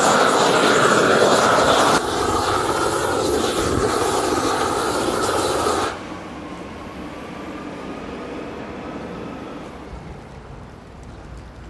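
Propane roofing torch burning with a loud, steady rush as it heats the modified bitumen cap sheet to fuse it down. About six seconds in the sound drops to a much fainter rush.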